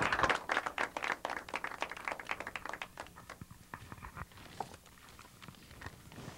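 Audience applauding: dense clapping that thins out after about three seconds into scattered claps.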